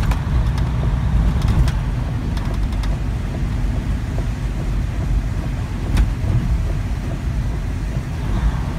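Semi-truck tractor running without a trailer on a wet highway, heard from inside the cab: a steady low diesel engine drone mixed with road and tyre noise, with a faint click about six seconds in.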